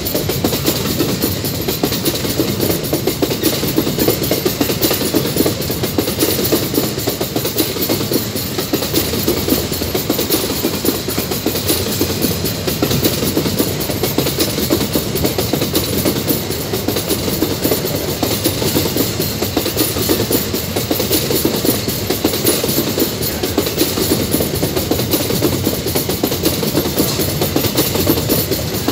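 Empty steel ore gondola wagons of a long freight train rolling past at close range: steel wheels on rail make a steady rolling clatter with dense rapid clicking.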